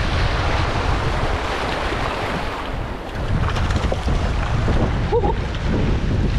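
Small ocean waves washing in and draining over rocks at the shoreline, with heavy wind buffeting on the microphone.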